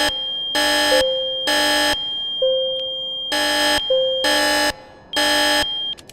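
Building fire alarm horns sounding the three-pulse evacuation pattern: loud buzzing blasts of about half a second in threes, a longer pause, then three more.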